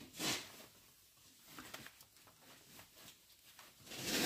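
Faint rubbing and handling noises as a rubber heater hose is forced onto its pipe fitting, with two short louder hisses, one just after the start and one near the end.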